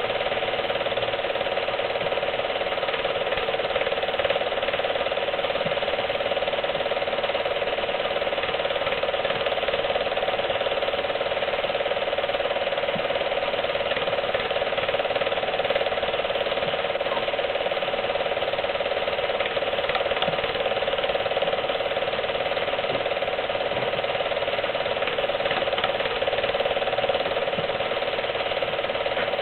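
Film projector running steadily, its mechanism giving an even, unbroken mechanical clatter with no change throughout.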